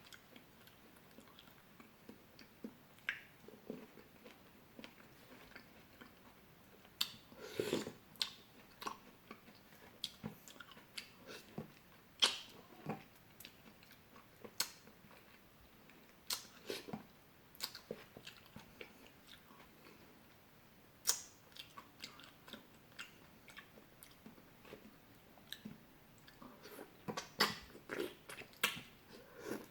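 Close-miked chewing and biting of fresh fruit: irregular wet smacks and clicks of the mouth, some bites louder than others.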